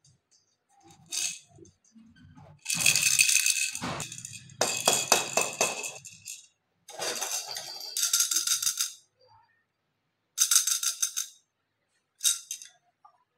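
Plastic baby rattle toys being shaken in about five short bursts, the pieces inside rattling, with near quiet between the shakes.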